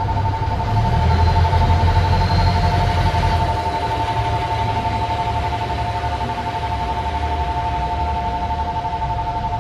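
KiHa 85 series diesel railcars pulling out, their diesel engines running with a low rumble that is loudest about one to three seconds in as the cars roll past. A steady two-note electronic tone sounds throughout.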